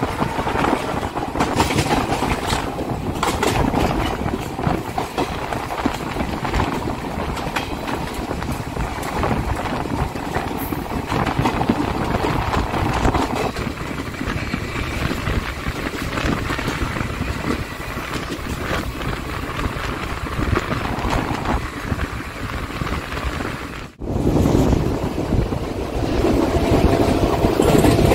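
Passenger train running on the line, heard from on board: a steady rumble and rattle of wheels on rails. The sound breaks off for an instant about 24 seconds in and resumes louder.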